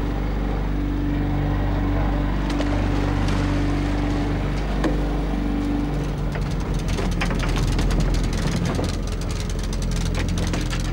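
Small fishing boat's engine running steadily. From about halfway through, rapid clicking and rattling of the longline hauling gear joins in as the line comes aboard over the rail roller.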